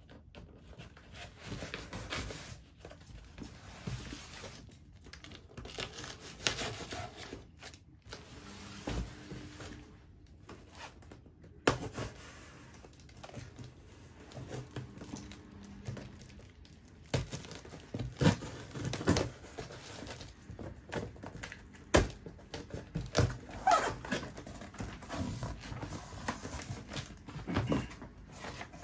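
A knife slitting the packing tape on a cardboard shipping box and the flaps being pulled open: tape tearing, cardboard scraping and paper crinkling, broken by a few sharp knocks.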